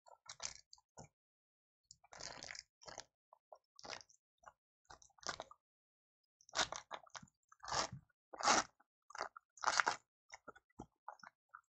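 Foil trading-card pack wrapper crinkling and tearing as it is worked open by hand, in irregular short rustling bursts that are loudest in the second half.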